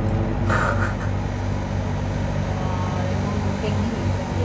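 Steady low mechanical hum inside an enclosed observation-wheel gondola, with a brief rustle about half a second in.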